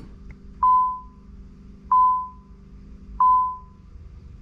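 Nissan 300ZX's dashboard warning chime sounding with the ignition switched on: three single dings about 1.3 seconds apart, each fading away, over a low steady hum.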